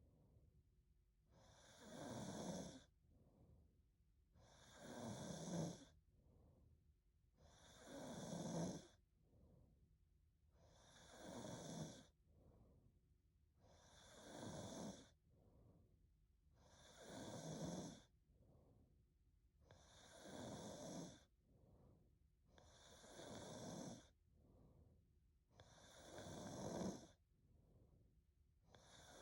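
A woman snoring quietly in her sleep: one snore about every three seconds, each swelling up over about a second, with a fainter breath between snores.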